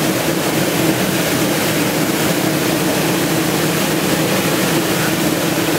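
Stainless-steel ginger washing and peeling drum machine running with a steady motor hum, while water pours and splashes out of the tilted drum with the ginger onto the steel discharge tray.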